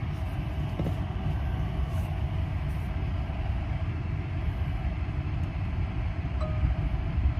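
Steady low road rumble inside the cabin of a Tesla Cybertruck, an electric pickup, as it drives with a travel trailer in tow.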